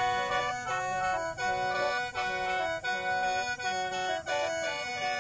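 Lao khaen, a long bamboo free-reed mouth organ, playing a lively melody of short notes over steady drone tones held throughout.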